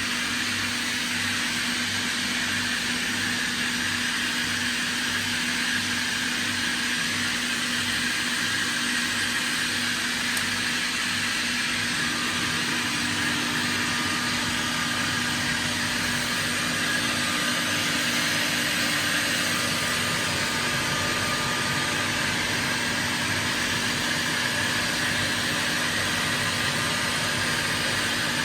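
Kaeser SK 21 11 kW rotary screw air compressor running steadily: an even hiss over a constant hum.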